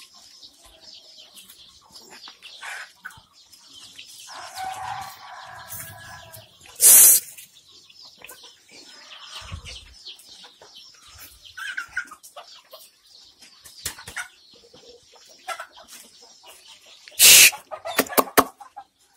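Many young chicks peeping continuously in high-pitched chirps, with a lower call about four seconds in. Two loud, brief bursts of noise come through, one about seven seconds in and one near the end.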